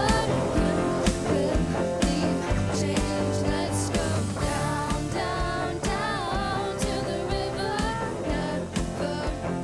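Live worship band playing a song, with singing over guitar and a steady drum beat.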